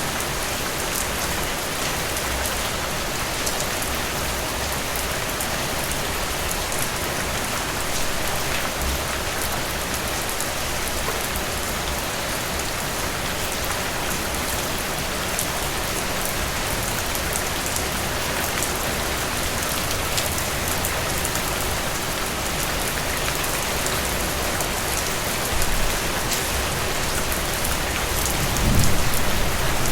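Heavy rain falling steadily, with the fine patter of individual drops. A louder low rumble comes in near the end.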